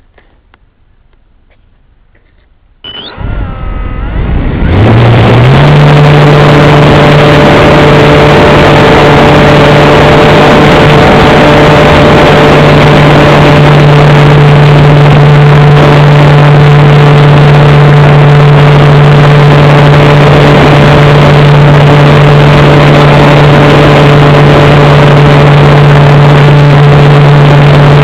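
Electric motor and propeller of an EasyGlider Pro RC glider starting up about three seconds in, rising in pitch over a couple of seconds and then running at a steady pitch, very loud; a few faint clicks come before it.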